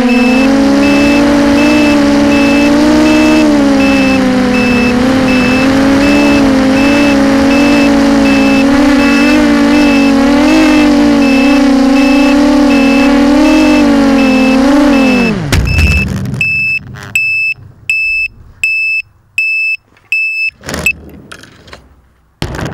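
Small brushless quadcopter motors (Sunnysky 2204 2300 kV, spinning 6045 props) running at a steady, wavering pitch with a rapid high beeping over them. About 15 s in, the motors spool down and stop. A high beep then repeats about every two thirds of a second, and a short rustle comes near the end.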